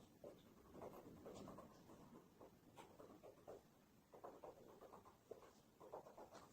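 Faint, irregular scratching and crackling, made of short rustly strokes with an occasional sharper click.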